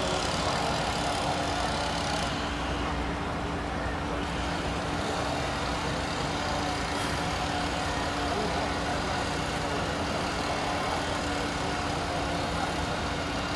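Heavy vehicle's engine running steadily, a constant low drone with a steady hum.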